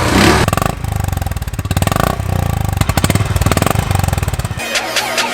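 Exhaust of a BS6 Royal Enfield Classic 350 single-cylinder motorcycle running, a rapid, even train of exhaust pulses. Music takes over near the end.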